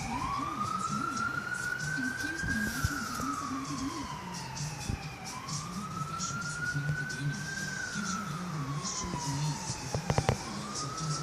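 A siren wailing, its pitch rising and falling slowly, about one rise and fall every five seconds. A few sharp clicks come about ten seconds in.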